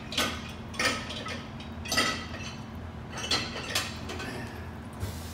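A metal utensil clinking against a cooking pot about five times, each strike ringing briefly, over a steady low hum.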